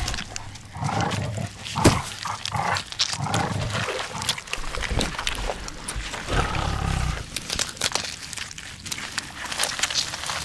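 Growling of a wolf-like beast in repeated rough bursts, mixed with sharp knocks and one loud hit about two seconds in: a werewolf-attack sound effect.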